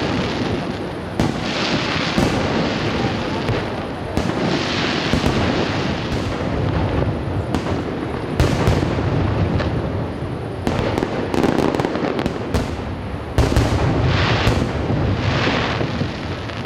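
Fireworks display: aerial shells bursting in repeated sharp bangs, one after another, over a continuous hissing wash.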